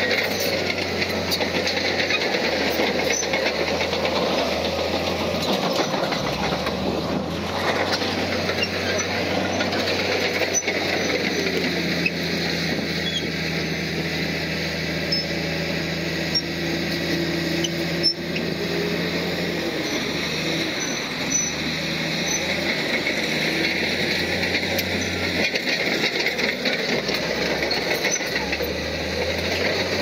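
Heavy earthmoving machinery working: a large diesel engine running under load amid a continuous metallic rattle, with the engine note changing pitch between about 12 and 20 seconds in and a single sharp knock near 18 seconds.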